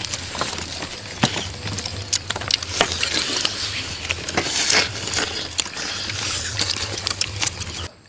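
Roasted crocodile meat and crisp skin being torn apart by gloved hands, a dense run of sharp crackles and crunches. The sound cuts off abruptly near the end.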